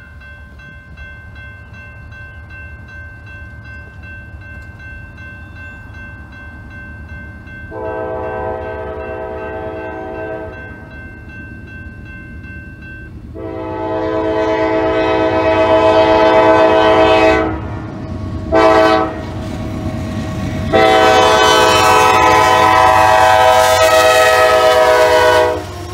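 CSX freight locomotive's multi-chime air horn sounding the grade-crossing signal: two long blasts, a short one, then a final long blast held as the locomotive reaches the crossing. Under it a railroad crossing bell rings steadily, and the locomotive's low rumble swells near the end.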